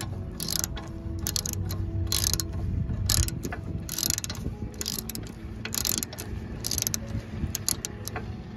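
Socket ratchet wrench clicking in short runs, roughly one stroke a second, as the brake caliper bracket bolt is tightened.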